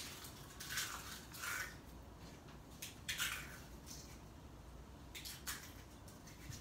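Foil snack bag of Doritos crinkling in several short bursts as a hand rummages in it for chips.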